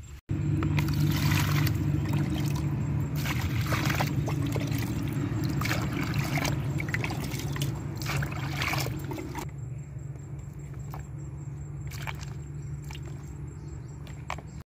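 Water splashing and sloshing in a plastic basin as vegetables are washed by hand. The splashing is loud for the first nine seconds or so, then quieter water movement with a few light knocks.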